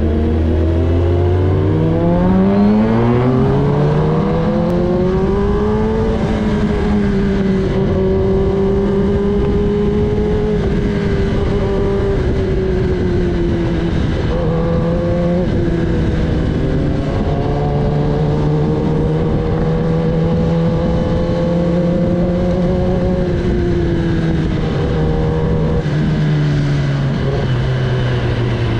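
Kawasaki Ninja ZX-10R's inline-four engine under way, its pitch rising steadily over the first several seconds as the bike accelerates. It then holds at an even cruising note with small rises and dips, and falls off near the end as the bike slows.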